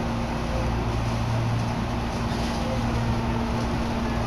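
Commuter electric train running, heard from inside the carriage: a steady rumble with a constant low hum.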